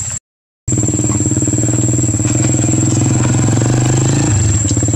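An engine running steadily at an even pitch, after a brief cut-out of all sound just after the start. A thin steady high whine runs above it.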